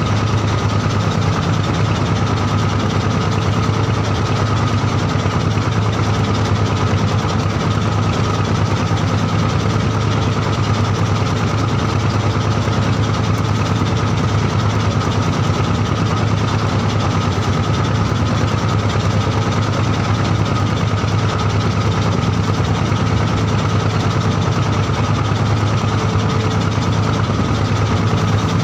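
Fishing boat's engine running steadily at an even pitch, a constant low drone.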